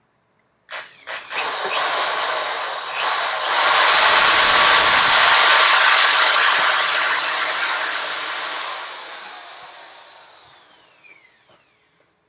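Electric drill with a 3/32-inch bit drilling a pilot hole in a tripod brace. After a couple of short starts, the motor whines up to full speed, runs steadily for about four seconds, then winds down with a falling whine.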